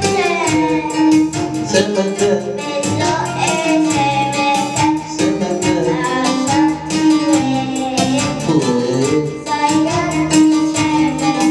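A children's song: singing over instrumental backing, with a steady tapping percussion beat.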